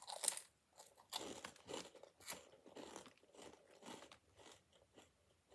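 Crunchy Flaming Hot Monster Claws corn snack bitten into and chewed: a loud crunch at the first bite, then chewing crunches about twice a second that fade toward the end.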